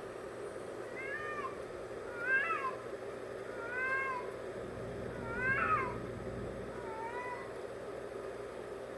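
A cat making weird meows: five separate calls, each about half a second long, rising then falling in pitch, spaced about a second and a half apart.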